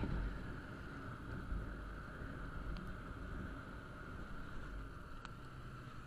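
Wind rumbling over the microphone of a camera on a moving motorcycle, with steady road noise from the ride. A single sharp click about five seconds in.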